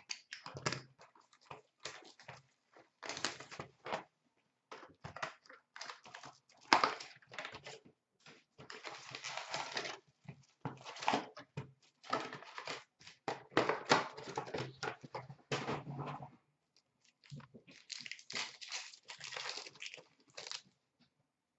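Hands tearing open a 2016-17 Upper Deck SP Authentic hockey card box and its card packs: irregular bursts of tearing and crinkling card and wrapper, stopping about a second before the end.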